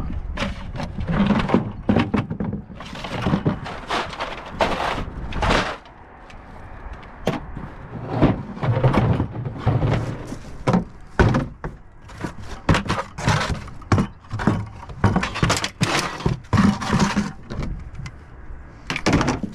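Footsteps, with the rustle and knock of a half-full plastic trash bag being carried: a run of irregular crunches and thuds.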